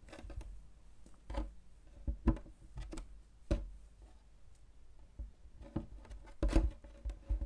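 Fruit being shifted and set down on a wooden tabletop: a banana, an orange and a tomato slid and placed by hand, giving several short knocks and light scrapes against the wood.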